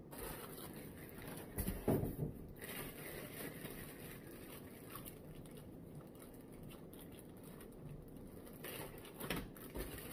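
Quiet room with faint handling noises: a soft knock about two seconds in and another near the end.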